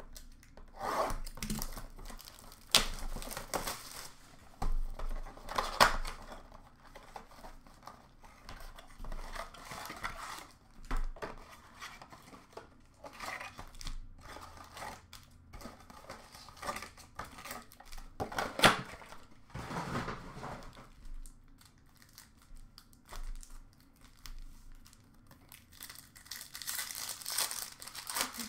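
A cardboard blaster box of hockey cards being handled and opened, and foil card packs being torn open and crinkled, in irregular bursts; the loudest tears come just under 6 seconds in and around 19 seconds in, with steadier crinkling near the end.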